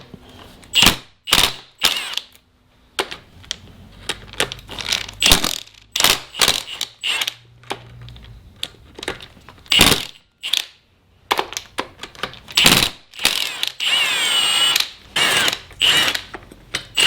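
Socket tool on the 10 mm bolts of an engine's oil filter housing, working them loose in many short bursts of ratcheting clicks. About fourteen seconds in there is a longer whirring spin with a rising and falling whine.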